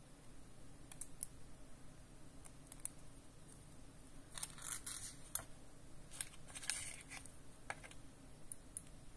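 Small manicure scissors giving faint, scattered metallic clicks as they are worked open and shut, then tucked back into the case's elastic strap with light scrapes and taps. The clicks come thickest about halfway through.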